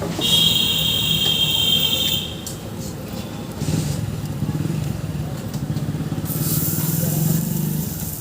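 Street traffic: a shrill horn or buzzer sounds for about two seconds, then a motor vehicle engine runs steadily nearby, with hiss rising near the end.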